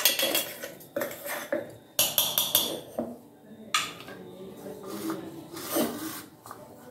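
A metal spoon scraping and knocking against a steel mixer-grinder jar, scooping out coarsely ground sesame seeds: a run of separate clinks and scrapes.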